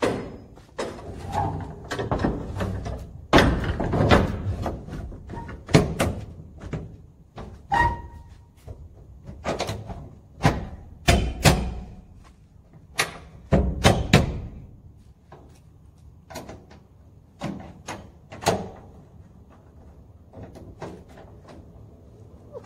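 Steel shipping container doors being pushed shut and latched: repeated metal clanks and bangs of the doors and their locking bars, with low rumbling scrapes between them. The bangs thin out over the last few seconds.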